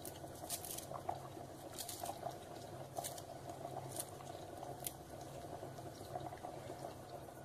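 Chicken gravy bubbling gently at the boil in a pot, with short crisp snips about once a second as a knife cuts coriander leaves into it.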